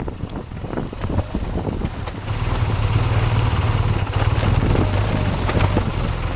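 BMW R 1200 GS boxer-twin engine running under way, its note growing louder and steadier from about two seconds in.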